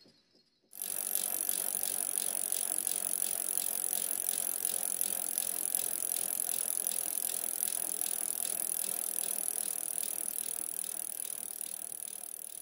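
A steady mechanical rattling, with faint regular ticks, that starts abruptly about a second in and eases off slightly near the end.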